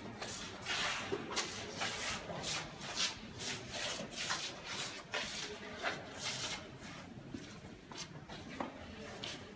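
Shoes scuffing and shuffling on a wooden floor: irregular soft swishes, several a second, growing fainter after about seven seconds.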